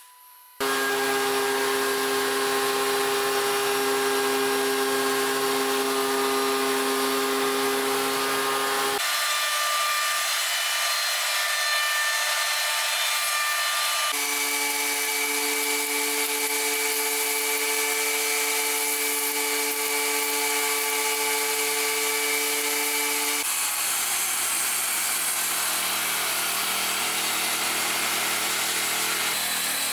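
Woodworking power tools running steadily, each a constant machine whine that switches abruptly about 9, 14 and 23 seconds in as one machine gives way to another. The last is a table saw running as a hardwood strip is fed along its fence.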